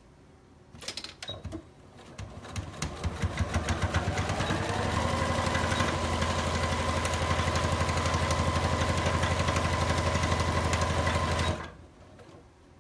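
Electric domestic sewing machine stitching through fabric: after a few clicks of handling, it starts up, speeds to a fast, steady stitching rhythm and stops abruptly about a second before the end.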